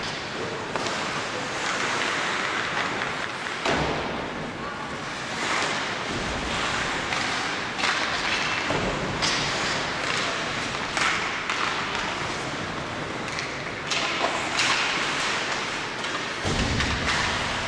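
Ice hockey play on an indoor rink: a steady hiss of skate blades scraping the ice, with frequent sharp stick and puck clacks and a few dull thuds.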